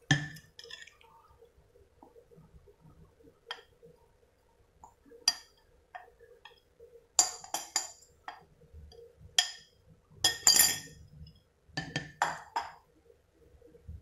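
Utensils clinking and knocking against a glass mixing bowl, in scattered taps and short clusters, as flour is added to cake batter and folded in.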